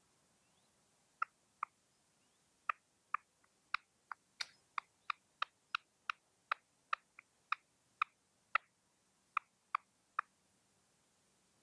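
Caged red-legged partridge decoy calling: a run of about twenty short, sharp notes, two or three a second, starting about a second in and stopping shortly before the end.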